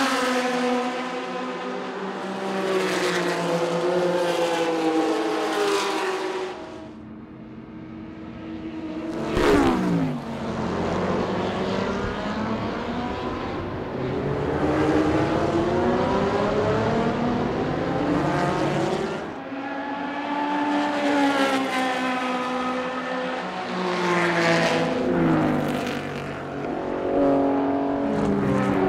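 Historic racing cars going past at speed, engines revving up through the gears and falling away as they pass, one after another. About nine or ten seconds in, one car sweeps by close with a sharp drop in pitch.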